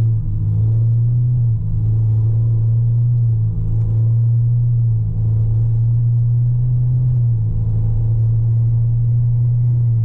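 Volkswagen Amarok's 3.0-litre V6 turbo-diesel under full-throttle acceleration, heard from inside the cabin. It is a steady deep drone with a few brief dips as the 10-speed automatic shifts up.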